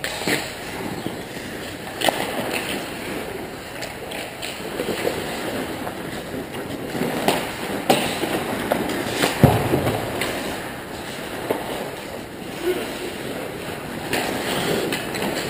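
Ice hockey play on the rink: skate blades scraping and carving the ice, with several sharp knocks of sticks and puck, the loudest about nine and a half seconds in.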